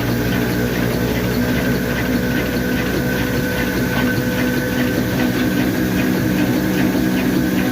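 Heavy old black diesel engine of a flour mill (atta chakki) running steadily, with a regular beat and a low hum.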